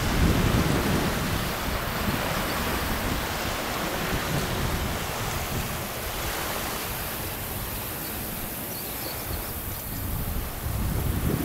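Wind blowing across the camera microphone: a steady rushing noise with irregular low rumbling gusts.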